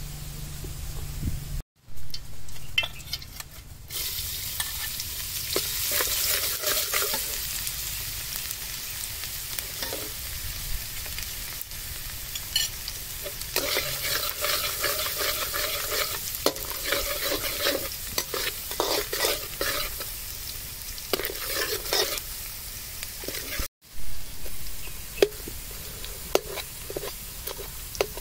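Minced garlic and chilli sizzling in hot oil in a steel wok, with a metal spatula scraping and clicking against the pan as it stirs. The sizzle sets in about four seconds in, after a short break in the sound.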